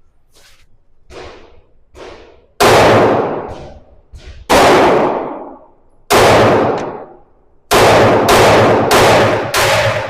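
Pistol shots: a few faint shots early on, then loud close shots with a long echoing decay. The first come about a second and a half apart, then a quicker string of about two a second near the end.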